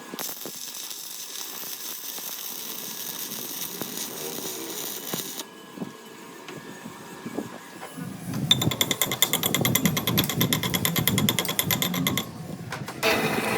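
Workshop power tool running with a fast, even rattle for about four seconds in the second half, after a steadier high hiss at the start.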